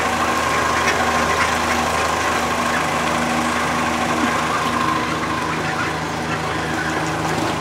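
A steady mechanical hum, like a small motor running, with several held tones. The higher tones drop out a little over halfway through and a lower one comes in near the end.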